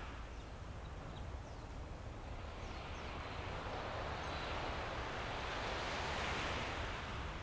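Outdoor seaside ambience: a low steady rumble with a rush of noise that swells over several seconds and fades near the end, and a few faint high chirps.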